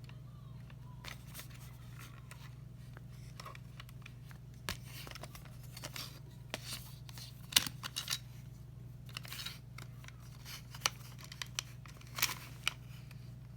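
A stapler being handled and opened to check its staples: scattered clicks and clacks at irregular moments, the sharpest a little past halfway, with a few brief scrapes, over a steady low hum.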